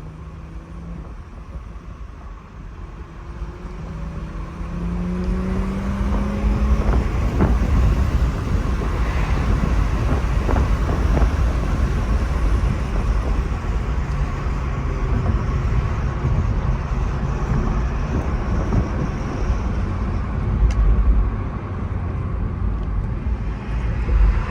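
BMW M340i's turbocharged 3.0-litre inline-six, fitted with an aftermarket intake, accelerating hard: the engine note rises in pitch and grows louder from about four seconds in, then a loud, steady run of engine and road noise follows.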